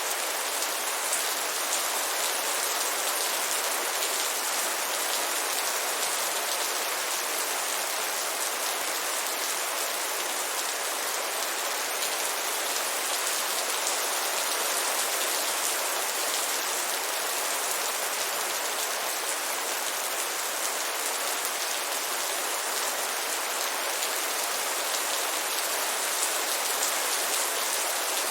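Heavy rain falling steadily: a dense, even hiss of drops with no thunder or other breaks.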